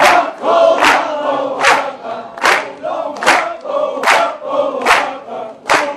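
A large ensemble of Kurdish tanburs (long-necked lutes) strummed in unison, with a heavy stroke about every 0.8 seconds, while many voices sing together over the playing.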